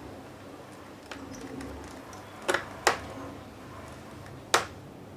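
Three sharp clicks of small hard parts being handled during laptop repair work: two close together about halfway in, then a louder one about a second and a half later.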